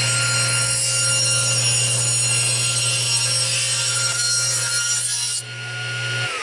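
Table saw running and ripping a thin strip of wood, the blade cutting steadily. A little over five seconds in the cutting noise stops suddenly as the cut ends, and at the very end the saw's hum begins to fall as it is switched off and spins down.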